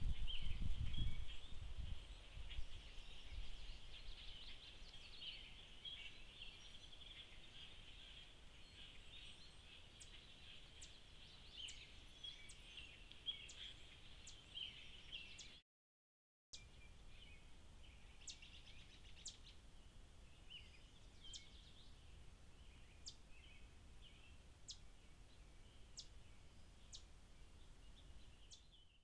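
Woodland ambience picked up by a trail camera's microphone: continuous high-pitched chirping with short, sharp single chirps scattered through it, over a low rumble that is loudest in the first two seconds. The sound cuts out for about a second halfway through.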